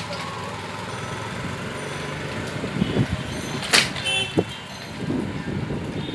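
Street ambience heard from a moving cycle rickshaw: a steady low traffic rumble with small knocks and rattles. A sharp click comes about three and a half seconds in, followed at once by a brief high metallic ring.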